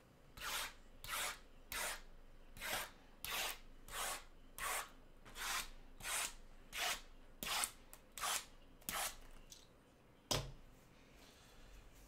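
Red box cutter slicing the plastic wrap on a stack of sealed trading-card boxes: a run of about fourteen quick scraping strokes, roughly one every half second or so, then a single sharp knock a second after they stop.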